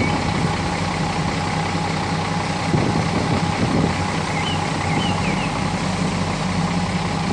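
Heavy diesel engine of a Hyundai wheel loader running steadily under work. A few faint, short, high chirps come about halfway through.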